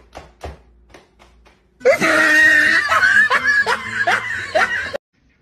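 A quick run of light hand claps, about four a second, then about three seconds of loud laughter with repeated rising yelps that cuts off suddenly.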